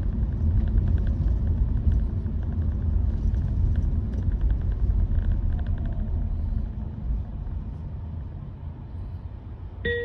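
Steady road and tyre rumble inside the cabin of a Honda Vezel e:HEV Z while driving, easing off after about seven seconds as the car slows. A short chime sounds at the very end.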